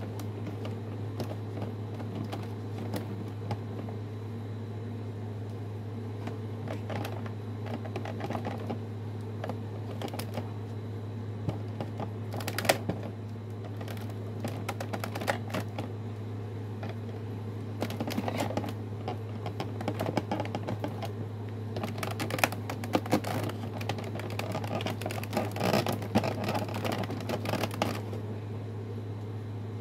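Hands working a boxed toy robot out of its packaging: irregular clicks, taps and rustles of cardboard and plastic, busier in the second half, over a steady low hum.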